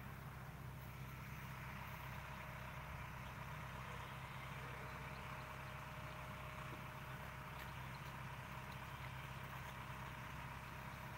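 Faint excavator diesel engine running steadily, a constant low hum.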